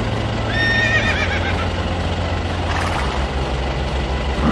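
Horse whinnying, a neigh that wavers in pitch about half a second in, with a second one starting just at the end, over a steady low hum.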